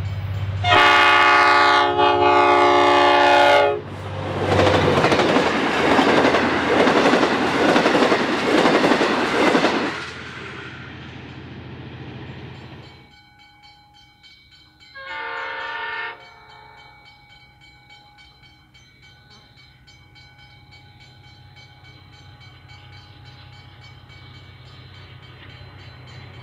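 A diesel locomotive climbing the grade sounds one long multi-tone horn blast of about three seconds as it nears, then passes with its carriages, the rumble and wheel clatter dying away over several seconds. About fifteen seconds in, a second train sounds a short horn blast in the distance, and its engine hum slowly grows as it approaches.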